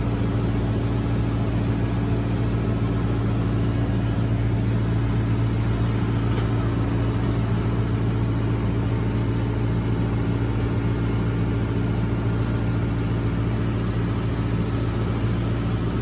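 Skid-steer loader's engine idling steadily, an even low drone with no change in speed.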